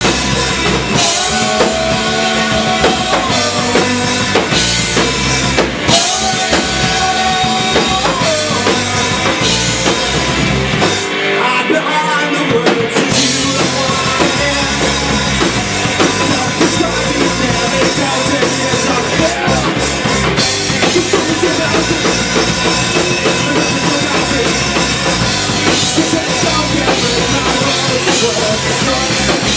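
Live band playing loudly, led by a drum kit with bass drum. About eleven seconds in, the drums and low end drop out for about two seconds, then the full band comes back in.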